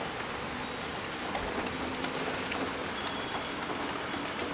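Steady rain falling: a dense, even hiss with occasional sharper ticks of single drops.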